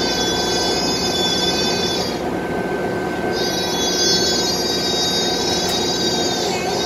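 Cabin noise of a Scania K320 articulated city bus under way: a steady running hum with a high-pitched whine that drops out for about a second midway, returns, and falls in pitch near the end.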